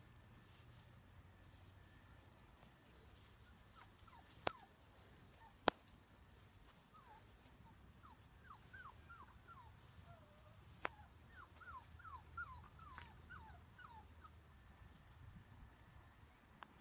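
Faint outdoor insect chorus, crickets chirping at an even pace over a steady high buzz. Through the middle comes a run of short, high, falling squeaks, with a few sharp clicks.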